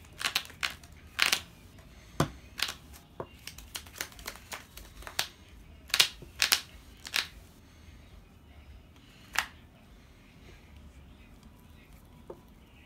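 Trading cards being handled at a table: a run of sharp, irregular snaps and clicks as cards are fingered and moved, thinning out after about seven seconds, with one more click near ten seconds.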